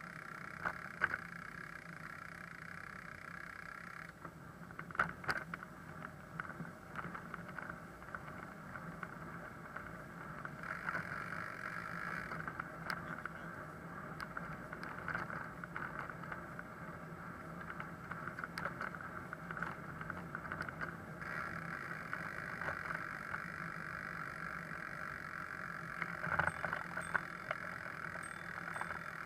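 Steady rolling and rattling noise of a bicycle ride over brick paving, picked up by a camera mounted on the bike, with a few sharp knocks from bumps, around a second in, about five seconds in and near the end.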